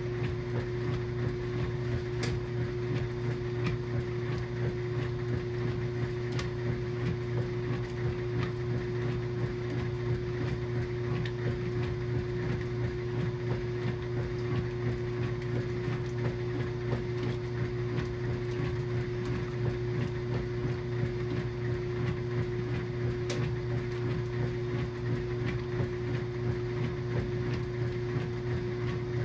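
KitchenAid washing machine running a small load of towels on its low-low speed setting: a steady motor hum with a constant whine and a few faint clicks.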